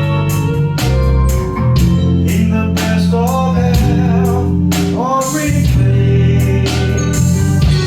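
A live band playing: drum kit keeping a steady beat under bass guitar, electric guitar and keyboards, with a couple of sliding notes in the middle.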